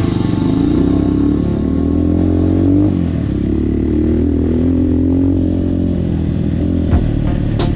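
Rusi KRY 200 dirt bike engine pulling under acceleration, its pitch climbing, dropping at a gear change about three seconds in, then climbing again before holding steady.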